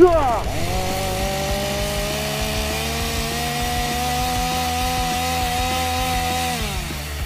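A two-stroke chainsaw engine running at high revs, dubbed in as a sound effect. It opens with a quick falling swoop, then holds a steady, slightly rising pitch and winds down shortly before the end.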